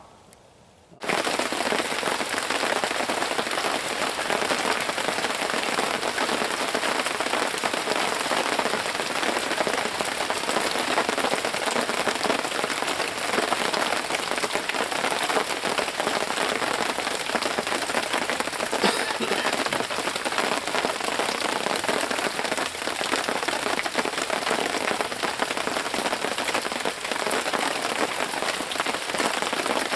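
Steady rain falling, a dense even patter that comes in suddenly about a second in.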